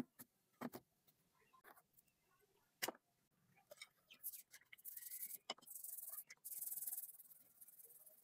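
A wire brush scrubs the rusty steel blade of a pair of scissors in soapy water. A few faint clicks and splashes come first, then from about halfway in a stretch of fast, scratchy brushing strokes.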